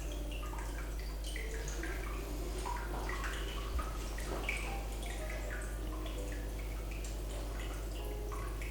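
Water dripping and trickling: many small droplet plinks at changing pitches, scattered irregularly, over a steady low hum.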